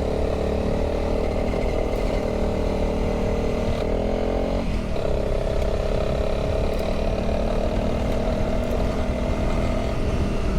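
Honda CRF300 dual-sport motorcycle's single-cylinder engine running steadily while riding up a hill, its pitch changing about four to five seconds in.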